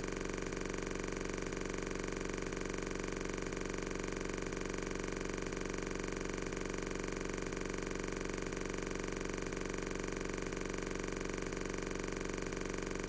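A steady, unchanging hum made of several fixed tones.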